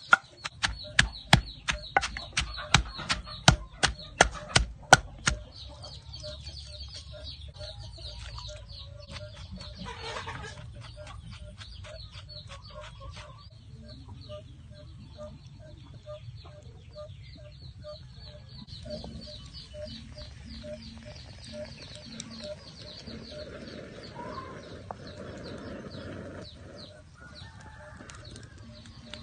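Wooden pestle pounding chilies in an earthenware mortar, about a dozen sharp strikes in quick succession that stop about five seconds in. After that, chickens clucking in the background.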